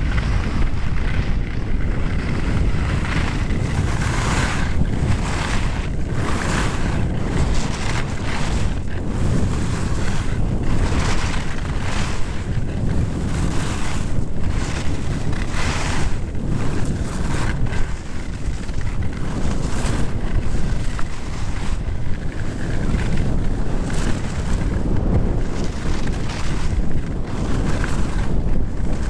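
Wind buffeting the microphone of a camera carried by a skier going downhill, a steady low rumble. Over it, skis scrape and swish on packed snow about every second or two as the skier turns.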